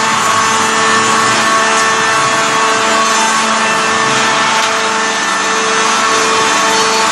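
Gulin BM270 beam saw running: its two circular saw blades cutting through a log, a steady sawing noise over a steady machine hum.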